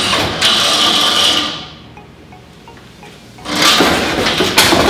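Wooden upper-cabinet framing being wrenched and pried down from the ceiling: wood cracking, scraping and rattling in two loud spells, the second ending in sharp knocks.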